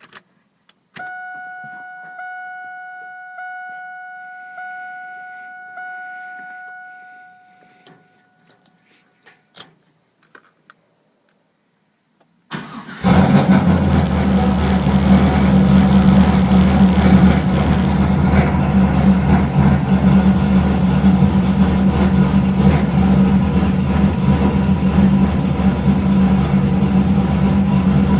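Heard from inside the cabin, a warning chime sounds in repeated pulses for about six seconds, followed by a few clicks. About halfway through, the 2000 Camaro SS's 427-cubic-inch V8, with long-tube headers, an aggressive cam and Flowmaster 10-series mufflers, starts abruptly from cold and then runs at a loud, steady idle.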